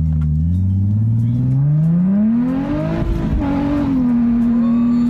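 Nissan 370Z's 3.7-litre V6 heard from inside the cabin during a hard acceleration pull. The revs climb steadily for about two and a half seconds, then drop slightly and hold steady.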